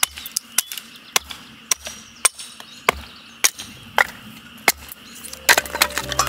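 Campfire firewood crackling, with sharp irregular pops about two a second and a quick cluster of pops near the end. Background music comes in for the last second or so.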